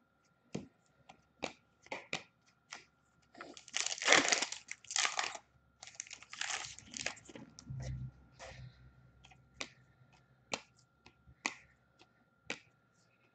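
A trading card pack's foil wrapper being torn open and crinkled, loudest about four seconds in. Sharp clicks of cards being handled come before it, and then about once a second near the end as the cards are flicked through one by one.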